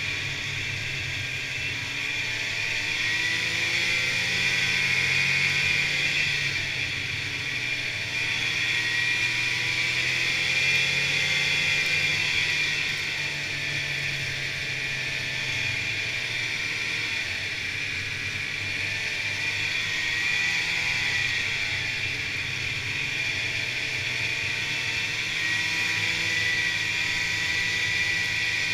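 Snowmobile engine and track running at trail speed, heard from on board. The engine note rises and falls gently as the rider works the throttle, over a steady high whine.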